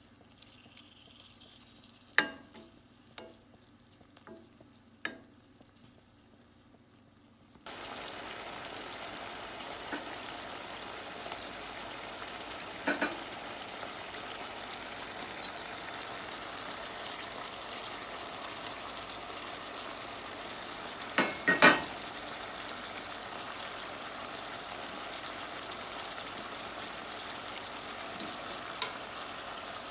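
A wooden spatula knocks a few times against a nonstick pan of pork and tomato over faint sizzling. About eight seconds in, a steady frying sizzle of the meat cooking in its liquid starts suddenly, with a loud double knock about two-thirds of the way through.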